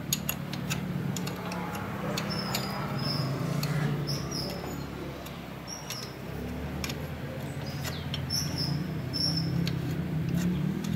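Small clicks and taps of hands working at a stripped motorbike engine's cylinder head and cam chain, over a low hum, with short bird chirps in the background.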